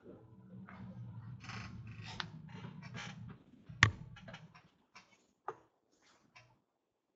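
A series of small clicks and rustles from something handled out of view, over a low hum that stops a little past three seconds. The loudest is a single sharp click just under four seconds in, and a few fainter clicks follow before it goes quiet.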